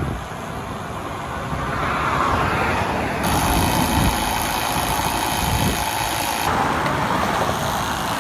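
A motor vehicle's engine running with road noise, the sound shifting abruptly twice.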